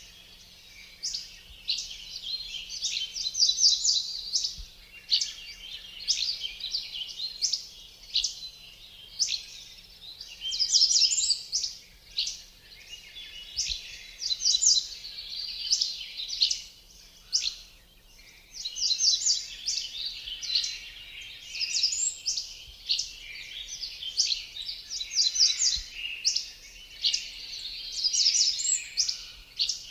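Songbirds chirping and singing: quick runs of high notes, one phrase after another with short gaps between.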